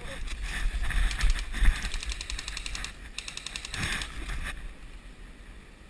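Airsoft gun firing on full auto: a rapid, even clatter of shots in two long bursts, the first about two seconds long and the second shorter, ending about halfway through.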